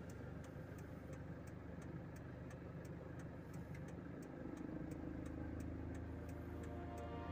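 Car engine and road noise heard from inside the cabin, a steady low hum as the car rolls slowly, with the indicator flasher relay ticking evenly about two and a half times a second.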